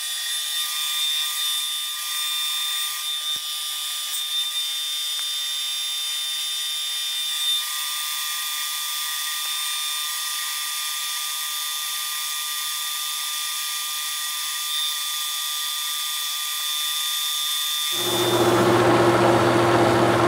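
Metal lathe boring out a coupler bore with a heavy boring bar on a light cleanup pass: a steady machine whine with the cutting noise of the tool. Near the end the sound turns louder and deeper as the lathe runs on.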